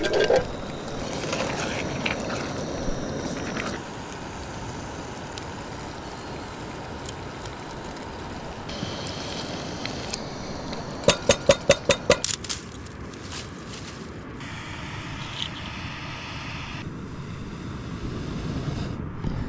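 Camp cooking at a propane camp stove over a steady rushing noise: chickpeas tipped from a can land in a steel pot at the start, water is poured in from a jug, and a little past halfway comes a quick run of about seven sharp metallic taps.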